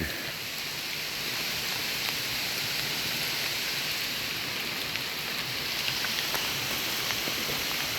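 Steady rain falling in an even hiss, with a few faint drop ticks.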